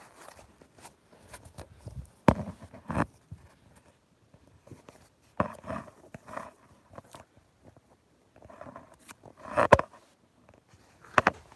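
Handling noise from a phone being moved about against clothing and hands: irregular knocks, rubs and rustles, with a few louder thumps.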